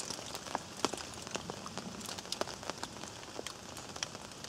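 Wood campfire of big logs crackling, with irregular sharp pops over a steady hiss.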